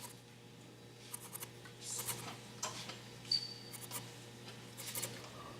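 Pencil scratching short, irregular strokes on wooden turning stock, darkening layout lines, over a low steady hum.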